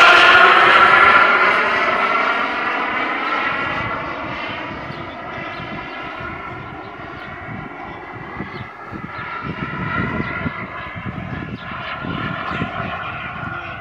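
Radio-controlled model MiG-29 jet flying past, its engine whine loudest at first and dropping slightly in pitch as it goes by, then fading, and swelling a little again near the end.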